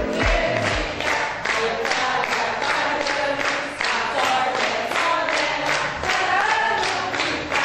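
A group of people singing together while clapping their hands in time, about three claps a second.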